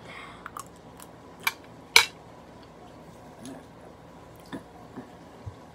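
Eating utensils clinking against dishes in a few sharp, separate clinks, the two loudest about a second and a half and two seconds in, with fainter ones near the end.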